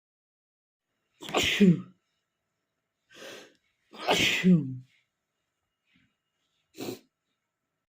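A man sneezing twice, about three seconds apart: two loud sneezes, each ending in a voiced 'choo' that falls in pitch. A quieter breath comes between them and a brief, faint sound near the end.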